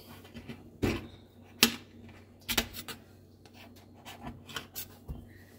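Knife cutting a slice of white bread around an upturned stainless steel bowl used as a mould: short, irregular scraping strokes with a few sharp clicks of the blade on the metal and the plate, the sharpest about a second and a half in.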